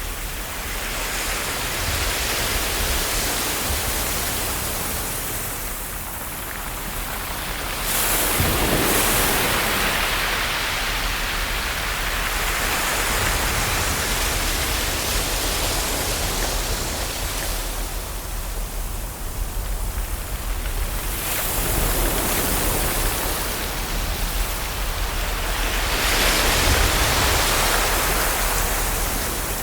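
Ocean waves washing onto a shore, a continuous rush of water that swells and ebbs. Stronger surges come about 8 seconds in and again near the end.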